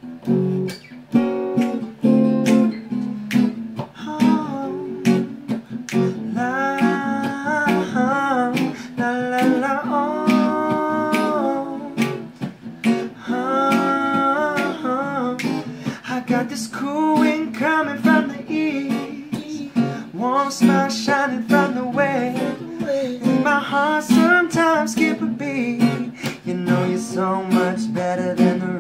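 Acoustic guitar strummed in a steady rhythm, with a voice singing over it from about six seconds in.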